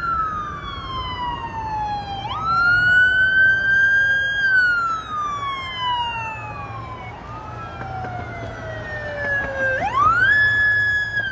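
Police siren on a slow wail: the pitch climbs quickly, holds briefly, then falls slowly over several seconds. It does this twice and climbs again near the end, with a fainter second siren overlapping in the second half.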